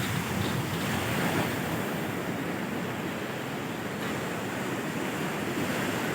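Sea surf washing steadily on the shore, with wind on the microphone.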